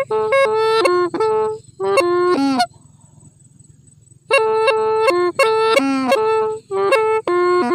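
Hmong raj le le pipe played solo, with a bright, reedy tone: quick phrases of short stepped notes, some sliding down at their ends. The phrases break off for a pause of about a second and a half near the middle.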